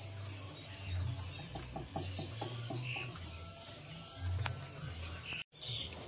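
Many caged songbirds chirping, short high curved chirps repeating over a low hum. The sound cuts out for a moment near the end.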